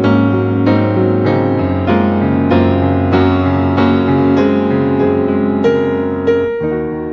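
Background classical piano music: a slow, even piece with a new note struck about every half second, each ringing on under the next.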